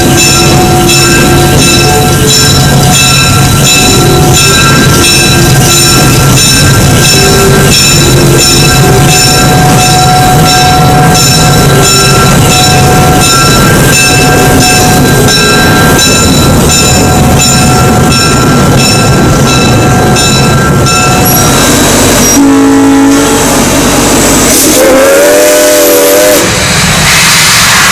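Train running past with an even run of clicking and steady squealing tones. Near the end a steam locomotive's whistle blows, the last blast wavering in pitch.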